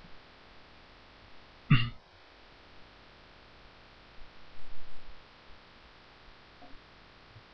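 Faint steady microphone hum, with one short throat-clear from the narrator a couple of seconds in.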